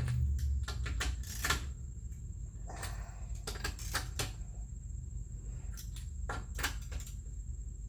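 Irregular metallic clicks of a socket wrench ratcheting as wheel lug nuts are tightened, in short groups with pauses between them.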